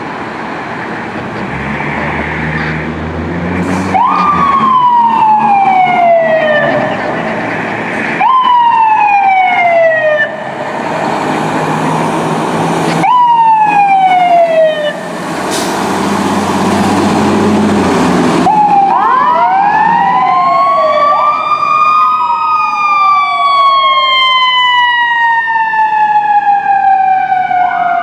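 Fire engine's mechanical siren, wound up sharply and let fall away slowly, again and again, with loud air-horn blasts between the rises. Near the end, overlapping electronic wailing sirens from the departing engine and ambulance join in, rising and falling.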